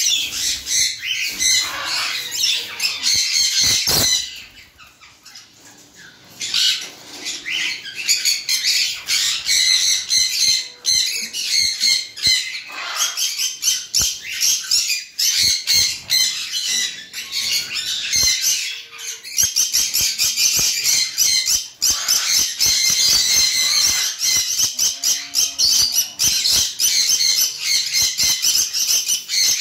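Caged lories calling with rapid, high-pitched squawking chatter that goes on almost without a break. It dies down for about two seconds around four seconds in, and sharp clicks are scattered through it.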